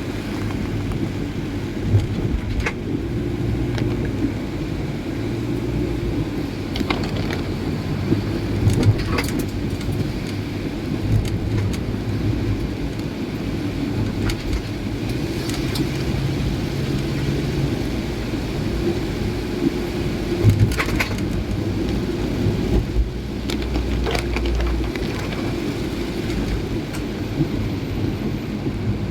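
Car driving in heavy rain: a steady low engine and road rumble that shifts in pitch now and then, with the hiss of rain and a few short sharp knocks.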